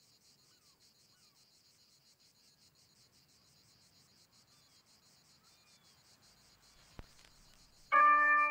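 Faint crickets chirping in a steady, rapid pulsing rhythm, with a single soft click about seven seconds in. Near the end, music starts abruptly with loud held notes.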